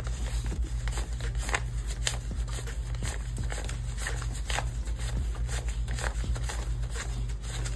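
Paper banknotes, US five-dollar bills, counted by hand: a quick, uneven run of crisp flicks and rustles as each note is peeled off the stack, over a steady low hum.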